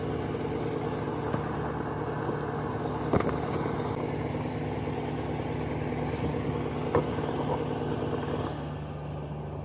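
Engine running steadily at a constant pitch, with two brief knocks about three and seven seconds in. The higher part of the hum drops away near the end.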